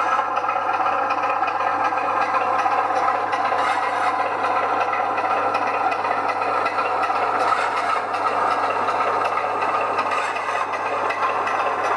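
00 gauge model railway locomotive running on the layout: a steady mechanical hum with a light rattle and scrape of wheels on track.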